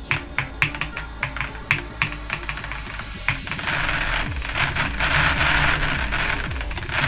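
Edited music track laced with sharp clicks, about three or four a second. About three and a half seconds in they give way to a louder, dense hissing wash over a low drone.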